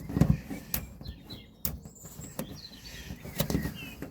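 A few sharp clicks and knocks of car door parts being handled, the loudest about a quarter of a second in, with birds chirping in the background.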